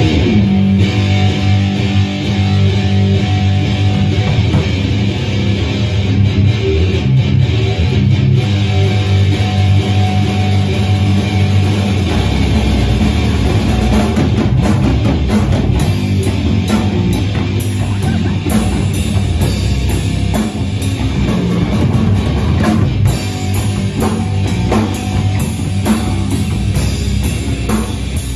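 Rock band playing live, electric guitar over a drum kit; the low end grows heavier about twelve seconds in.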